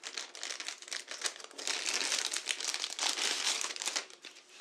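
Plastic packaging crinkling in the hands as the multimeter is unwrapped: a dense run of crackles, loudest through the middle.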